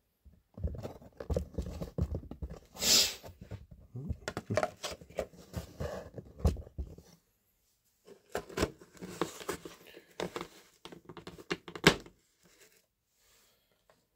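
Clear plastic deli-cup lid being handled and pressed back onto the cup: crinkling plastic with many clicks and snaps, a short pause in the middle, and a sharp snap near the end.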